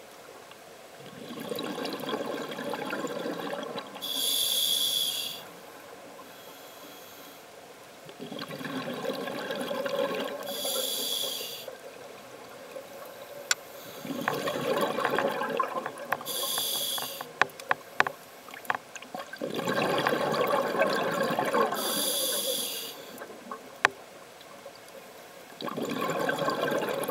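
Scuba diver breathing through a regulator, a breath about every six seconds: each a rush of sound a few seconds long followed by a short high hiss, with a few sharp clicks in between.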